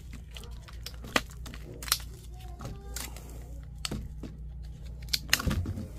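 Scattered clicks and rustles of small plastic parts and packaging being handled while a condensate float switch kit is unpacked, over a steady low hum. A few louder clicks come near the end.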